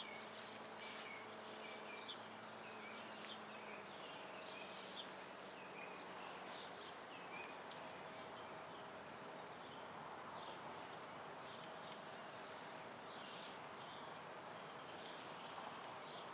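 Faint outdoor ambience: small birds chirping over and over, short high chirps against a steady background haze. A low hum fades out a few seconds in.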